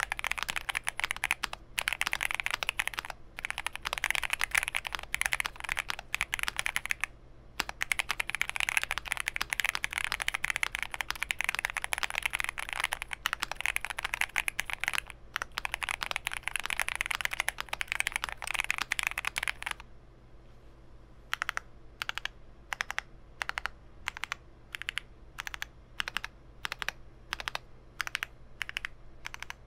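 Mr. Suit custom mechanical keyboard with lubed Gateron Ink Black linear switches, a POM plate and GMK keycaps being typed on in quick, continuous runs. About two-thirds of the way through, the typing changes to single keystrokes, about two a second.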